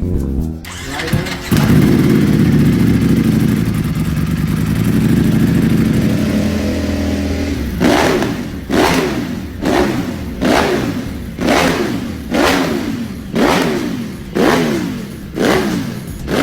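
V4 sportbike engine starting up and running steadily. From about halfway it is revved in about ten sharp throttle blips, roughly one a second, each dropping back toward idle.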